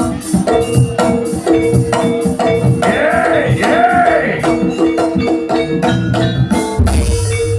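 Javanese jaranan music: a gamelan-style ensemble of drum, tuned metal percussion and shakers playing quick, even strikes under a held tone, with a sliding melodic line in the middle.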